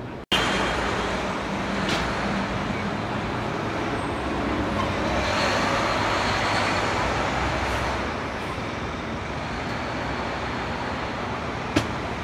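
City street traffic: a steady wash of engine and tyre noise that swells around the middle as a vehicle passes. The sound drops out for an instant just after the start, and there is a sharp click near the end.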